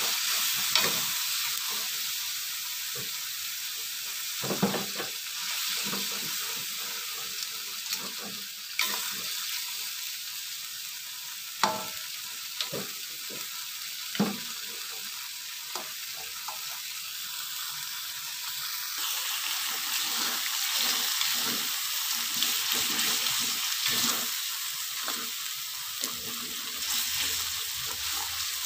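Blended spice paste with chopped green tomatoes and chillies sizzling in a metal wok as it cooks down, stirred with a metal spatula that scrapes and knocks against the pan now and then. The sizzle gets a little louder about two-thirds of the way through.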